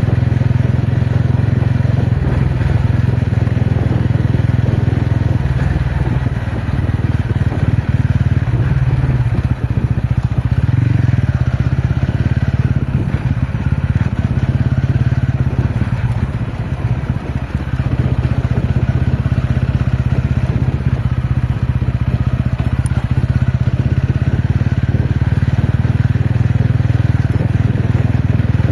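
TVS Ronin's single-cylinder engine running steadily while the motorcycle is ridden, its low hum holding fairly even with a few brief dips in level.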